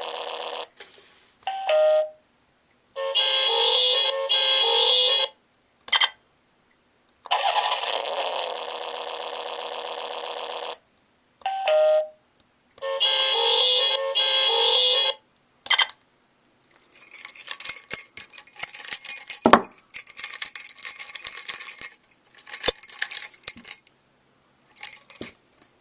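A 1999 Playskool car-alarm key ring toy playing its electronic sound effects through its small speaker, one after another with button clicks between them: an engine-running sound, a short two-note chirp and a beeping tune, each heard twice. About seventeen seconds in comes a long, high-pitched, pulsing alarm.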